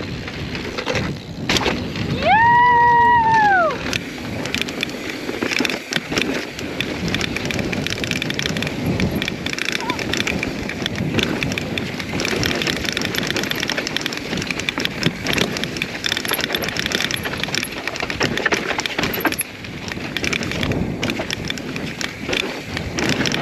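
Mountain bike riding down a rocky trail: tyres crunching over rock and gravel, with the bike clattering and ticking throughout. About two seconds in, a loud, high tone rises and falls over a second and a half.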